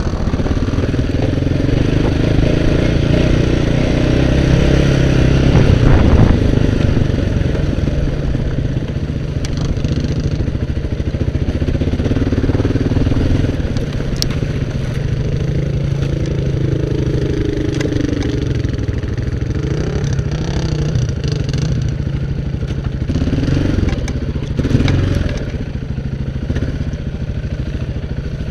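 Quad (ATV) engine running under load while climbing a rocky trail, its pitch rising and falling with the throttle, with a few sharp knocks along the way.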